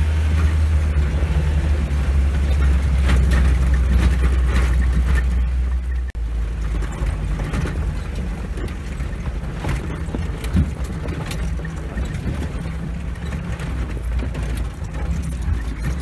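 Soviet UAZ off-road vehicle's engine running as it drives a rough dirt mountain track, heard from inside the cab, with knocks and rattles from the body over the bumps. About six seconds in, the engine drone cuts out briefly and then settles to a lower level.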